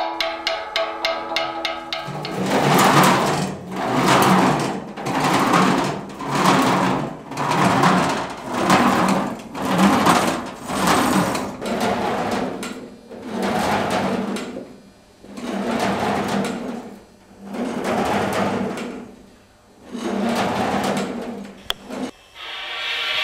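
Something rubbed back and forth over a thin metal sheet, about a dozen slow scraping strokes that each swell and fade. A fast even ticking leads in during the first two seconds, and a steady mechanical hum starts near the end.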